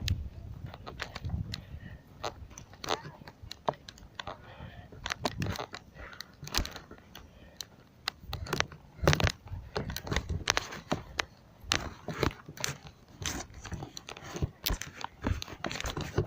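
Footsteps and the rattle of carried fishing gear while walking: an irregular scatter of sharp clicks and knocks, several a second.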